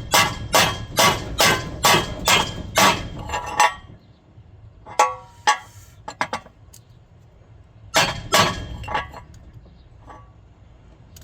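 Hammer striking an iron pipe and flange to drive a new lower bearing into a Speed Queen washer's bearing housing: about eight ringing metal blows, roughly two a second, then a few lighter clinks and two or three more blows past the middle.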